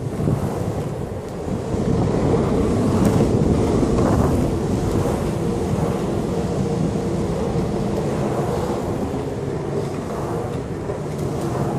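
Longboard wheels rolling fast on a concrete parking-garage ramp: a steady rolling rumble with a faint hum, mixed with wind buffeting the phone's microphone.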